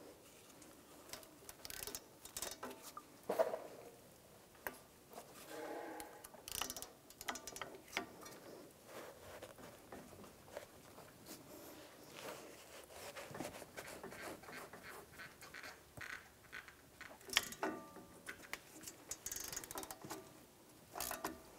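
Hand ratchet on a brake caliper bracket bolt, clicking faintly in short runs between pulls as the bolt is loosened, with a few louder metal clicks.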